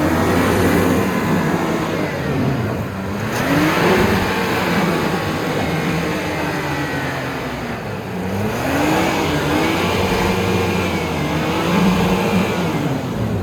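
A 4x4's engine revving hard under load as it is driven through a rough off-road obstacle. The revs climb and drop several times.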